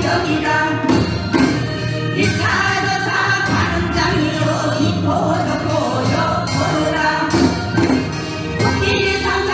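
Korean folk song (Gyeonggi minyo) being sung over instrumental accompaniment, with regular drum strokes keeping the beat.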